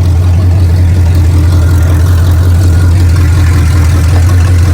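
A vehicle engine running loud and steady at one speed, low-pitched, with no revving.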